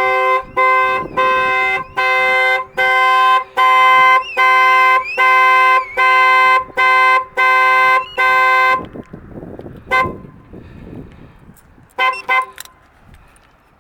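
Chevrolet Lacetti's horn blaring in a steady rhythm of short blasts, about one and a half a second, driven by a Starline A93 car alarm used in place of a siren. The pulsing stops partway through, followed by a single short toot and then two quick toots near the end.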